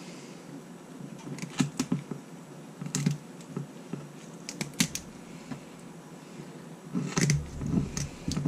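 Kitchen scissors snipping through a raw quail's small bones along its backbone: an irregular series of sharp clicks and crunches, thickest near the end.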